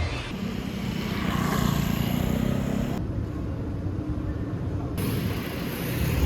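Street traffic noise: a steady rumble of passing vehicles, its sound changing abruptly three times.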